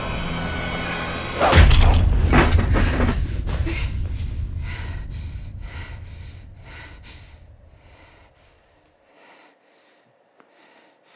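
Dramatic film score with dense sustained tones, cut through about a second and a half in by a loud crash. Pulses follow at about two a second, fading out to near silence.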